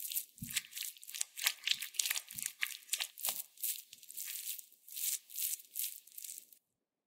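Silicone spatula mixing beaten egg into thick choux pastry dough in a glass bowl: repeated stirring and folding strokes, with a few low thuds in the first half. It stops suddenly about six and a half seconds in.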